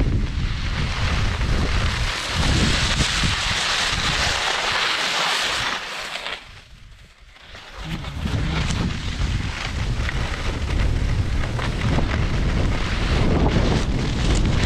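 Wind buffeting the microphone: a steady low rumble with a hiss above it. The noise drops away for about a second roughly halfway through, then comes back.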